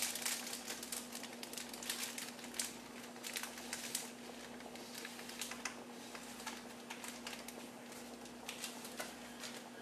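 Irregular light clicks and taps, thicker in the first half, over a steady low hum.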